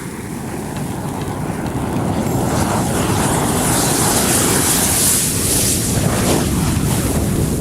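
A giant ball of match heads burning as a sparkler fountain: a loud rushing hiss that builds over the first couple of seconds and then holds strong.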